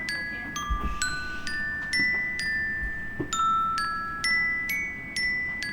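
An Apple iPhone ringtone playing: a repeating figure of bright, glockenspiel-like struck notes, about two a second, each ringing briefly and fading.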